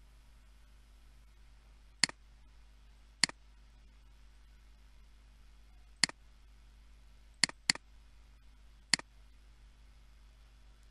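Computer mouse button clicking: six short, sharp clicks a second or more apart, with a quick double-click about seven and a half seconds in, over a faint steady low hum.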